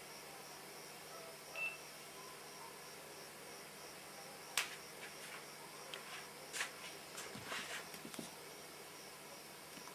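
Faint night ambience with crickets chirping steadily, broken by a few sharp clicks and taps, the loudest about halfway through and a cluster of smaller ones soon after.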